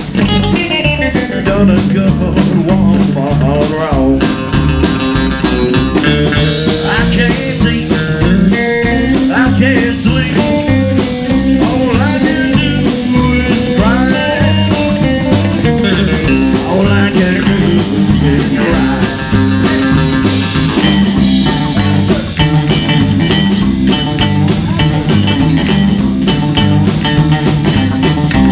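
Rockabilly band playing: upright bass, drum kit and electric guitar over a steady beat.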